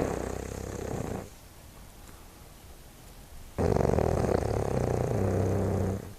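Snoring: a rattling snore that dies away about a second in, then after a pause of about two seconds a second long rattling snore that stops abruptly near the end.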